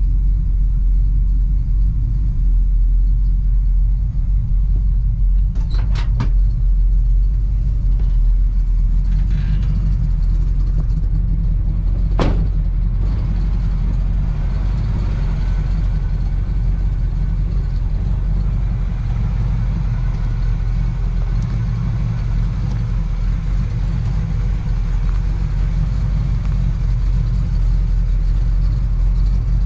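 Square-body GM crew cab pickup's engine idling steadily after a cold start, with a deep low rumble. A couple of clicks about six seconds in and a sharp knock about twelve seconds in, as the cab door is opened and shut.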